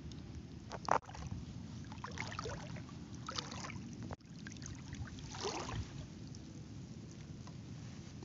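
Water sloshing and splashing in shallow water, with a few short louder splashes, the loudest about a second in.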